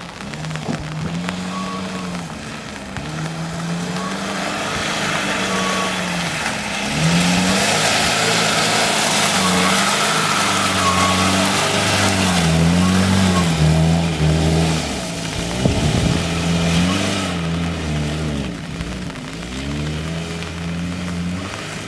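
Lada Niva's engine revving up and down again and again as it is driven off-road, with a loud rushing hiss through the middle that cuts off fairly suddenly.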